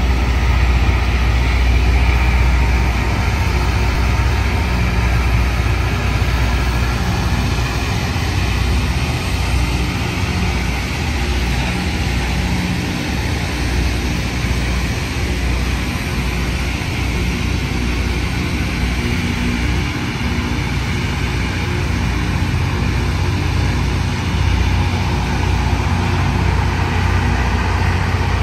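Loram rail grinder train passing while grinding: its diesel engines run under a loud, steady grinding noise from the grinding stones on the rails.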